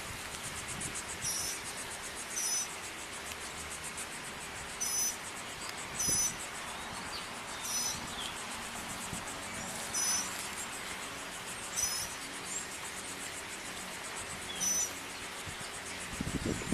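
Outdoor ambience of insects: a steady high buzzing trill, with short high chirps recurring every one to two seconds.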